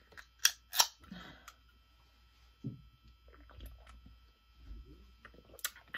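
Carbonated drink can being opened: two short, sharp hisses as the pull-tab breaks the seal and gas escapes, about half a second and just under a second in. After that come only faint sipping sounds.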